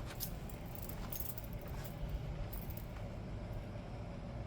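A motorcycle key ring jingling and clinking in hand, with a few light metallic clicks spread over the first couple of seconds, over a steady low background rumble.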